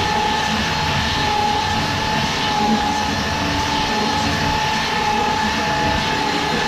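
Handheld electric power tool running continuously at steady speed, a constant motor whine over a rushing noise, as it works the wood.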